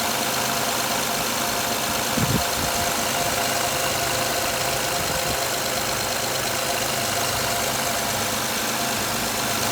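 Honda Odyssey engine running steadily at idle, driving a freshly installed rebuilt power steering pump. There is a brief knock about two seconds in.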